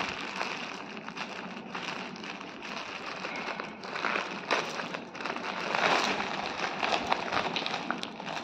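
Plastic courier mailer bag rustling and crinkling irregularly as it is handled and torn open by hand, loudest about halfway through.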